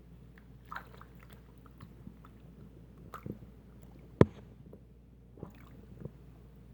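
Scattered wet squishing and sucking from a cloth pushed into a clogged sink drain and pulled out fast as a makeshift plunger, with one sharp knock about four seconds in.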